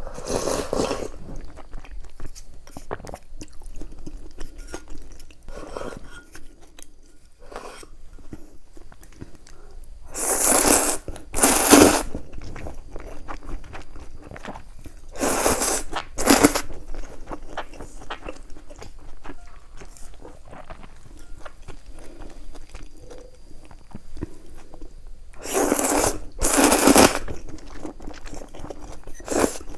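Close-miked eating sounds: steady small chewing and mouth clicks, broken several times by loud noisy bursts about a second long, often two in quick succession.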